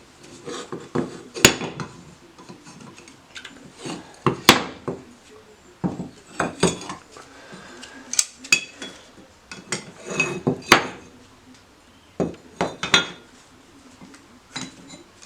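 Pieces of metal being handled, clinking and knocking against each other and against hard surfaces in an irregular series of sharp strikes with brief ringing, a few of them much louder than the rest.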